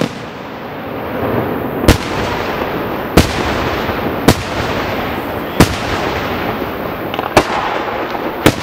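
Aerial firework shells bursting: six sharp bangs, one every one to two seconds, with continuous noise between them.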